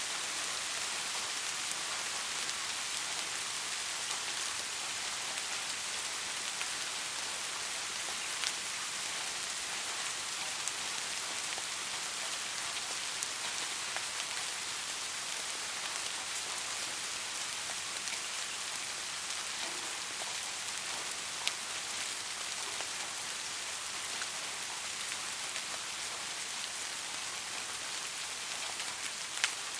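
Steady rain falling, a continuous even hiss with a few separate drops ticking out of it now and then.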